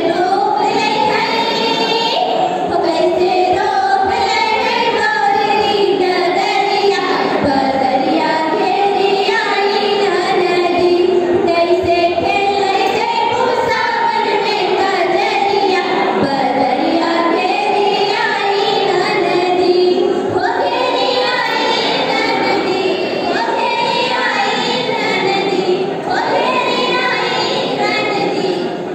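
Women's voices singing a Kajari, a Sawan-season folk song, into microphones, in a continuous melodic line.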